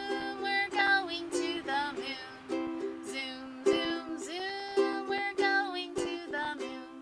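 Ukulele strummed in steady chords, with a woman singing a children's song along with it.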